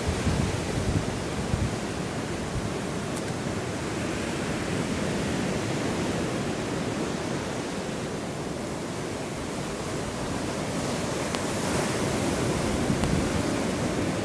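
Steady rush of surf on the shore mixed with wind on the microphone.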